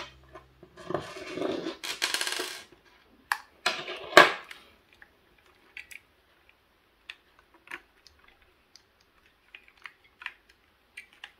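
Handling noise of plastic vacuum parts and a screwdriver on a desk: scraping and clicks in the first few seconds, one sharp click about four seconds in, then light scattered taps.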